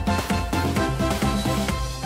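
Upbeat electronic background music with a steady beat and busy pitched notes.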